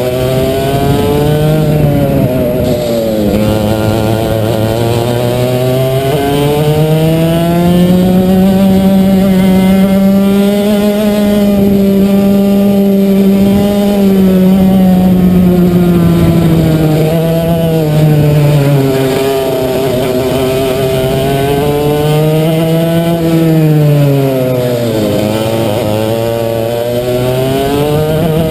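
Racing kart engine at full race pace, heard from on board. It revs up through the straights and drops in pitch when lifting for corners: a long climb to a high, steady note in the middle, a fall, a short rise and fall, a sharp dip near the end, then climbing again.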